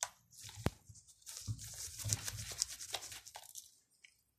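Small screwdriver unscrewing a tiny screw from a Nikon D7000 camera body: one sharp click under a second in, then about two seconds of faint scratchy clicks and rustles as the screw is turned out.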